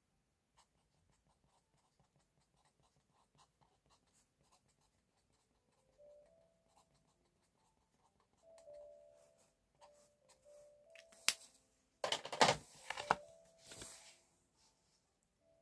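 Felt-tip marker scratching lightly on sketchbook paper while writing. Soft background music comes in about halfway, and near the end the paper pad is shifted across the desk with a loud rustle.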